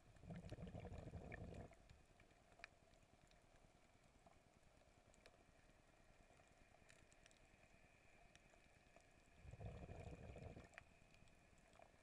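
Muffled underwater hush picked up by a submerged camera: two low rushes of water noise, each about a second and a half long, one just after the start and one about ten seconds in, with faint scattered ticks in between.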